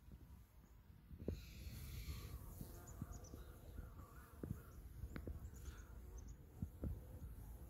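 Honeybees buzzing faintly around a hive entrance, under a low rumble of wind and handling noise on the microphone with scattered soft knocks.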